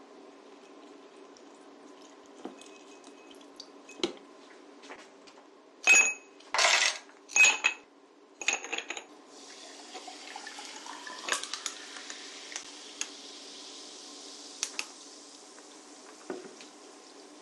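Dishes and cutlery clattering, with a cluster of loud clinks and knocks about six to eight seconds in. Then a tap runs water steadily for most of the rest, with a tone that rises for a second or so soon after it starts, over a faint steady hum.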